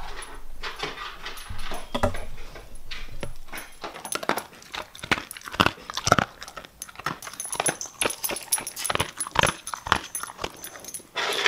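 Siberian husky eating dry kibble from an automatic feeder's tray: irregular crunching and clicks, with its collar tags jingling.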